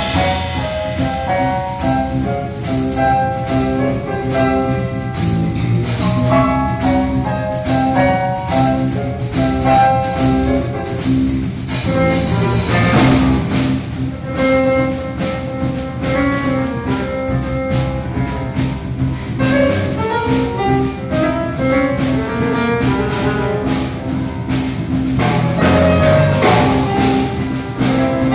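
Instrumental background music with a steady beat and a melody of quick pitched notes.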